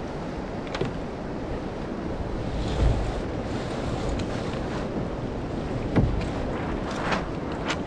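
Wind buffeting the microphone over water washing along a sailing kayak's hull, with two low thumps about three and six seconds in and a few light clicks and knocks from the boat toward the end.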